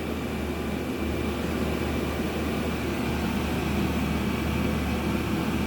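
A 5 kW 12 V diesel air heater running steadily up close: an even rush of fan and burner noise over a low hum, with a faint steady high whine.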